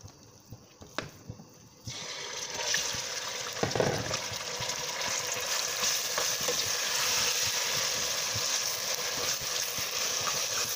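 Marinated minced meat dropped into hot oil in a steel pot, starting to sizzle suddenly about two seconds in and then frying steadily while stirred with a spatula.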